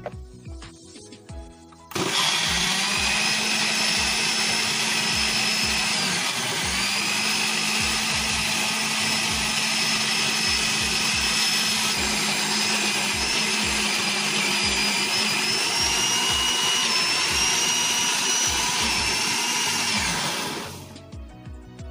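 Countertop electric blender running, pureeing chunks of carrot, onion and chili with fish sauce into a kimchi paste. The motor starts about two seconds in and runs steadily with a high whine. It dips briefly about six seconds in and shifts slightly upward in pitch later, then stops near the end.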